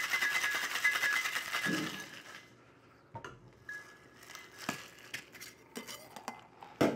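Ice rattling fast and hard inside a metal cocktail shaker as it is shaken vigorously, with a metallic ring, stopping about two seconds in. After that come a few light clinks and knocks of the metal shaker tins being handled.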